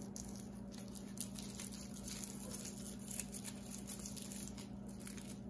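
Faint rustling and small crackles of lemongrass leaves being wrapped and tied around a whole fish by hand, over a steady low hum.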